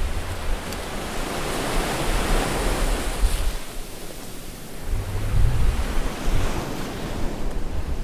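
Ocean waves washing and surging, with a swell building about two seconds in. Gusts of wind rumble on the microphone, once at the start and again about five seconds in.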